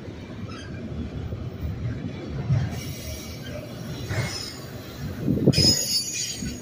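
Freight train of autorack cars rolling past, with a steady low rumble of steel wheels on the rails. About five and a half seconds in comes a brief high metallic squeal of wheels on rail, the loudest moment.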